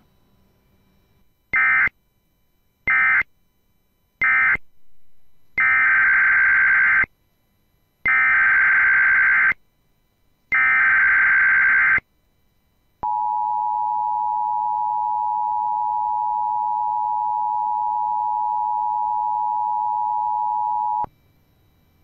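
Emergency Alert System tones. First come three short screeching digital data bursts, the end-of-message code of the previous alert. Then come three longer screeching data bursts, the header of the next alert, followed by the steady two-tone EAS attention signal held for about eight seconds, which cuts off cleanly.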